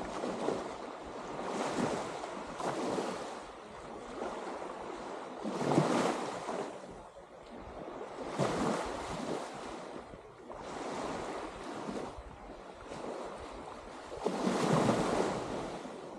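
Small waves washing onto a sandy beach: a rush of surf that swells and fades every few seconds, with two louder surges, one near the middle and one near the end.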